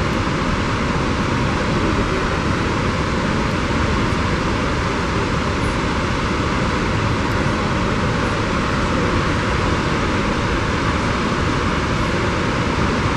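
Snoqualmie Falls, a 268-foot waterfall in heavy spring flow, pouring into its gorge: a loud, steady, unbroken rush of water noise.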